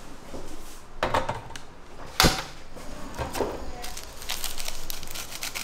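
Scattered handling clicks and knocks, with one sharp knock a little after two seconds in and a run of quick light clicks near the end.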